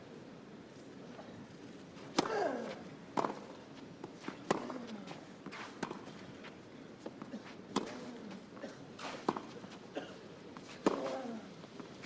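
Tennis rally on a clay court: sharp racket strikes on the ball about every second and a half, starting about two seconds in, with softer ball bounces between them.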